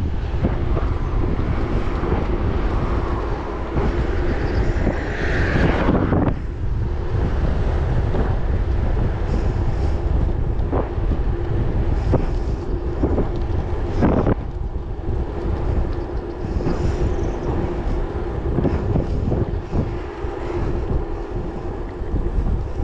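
Wind buffeting the microphone on a moving two-wheeler, over road noise and a faint steady hum, with a few brief knocks from bumps in the road.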